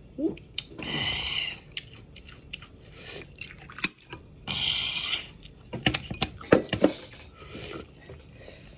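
A person chewing raw salad vegetables close to the microphone: wet mouth clicks and smacks, with several short, louder bursts of chewing noise.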